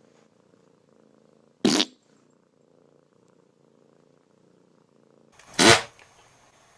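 Domestic cat purring softly, broken by two sudden loud hisses: a short one under two seconds in and a longer one about five and a half seconds in.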